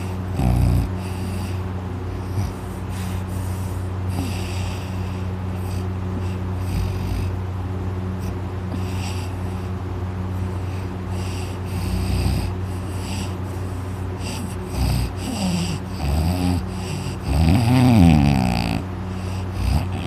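A young man snoring very loudly in deep sleep, with irregular louder snores that waver in pitch; the loudest comes near the end.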